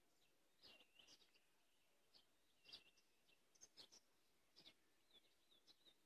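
Faint songbirds calling: scattered short high chirps, a few with a quick downward slur, and a quick run of short notes near the end.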